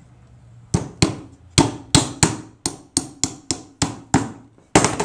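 A claw hammer drives a nail into the top of a wooden bird box, setting the nail that serves as the door's lock. About a dozen sharp taps come at roughly three a second, and the last two, close together, are the loudest.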